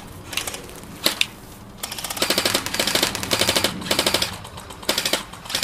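Airsoft electric guns (AEGs) firing at close range. A few single shots come first, then from about two seconds in several rapid full-auto bursts of fast mechanical clacking.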